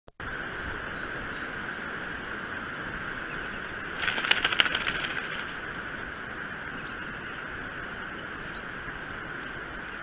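Steady hiss of rain and wind on the nest microphone. About four seconds in it is broken by a second-and-a-half burst of quick rustling and clattering as the bald eagle shifts and flaps on the nest.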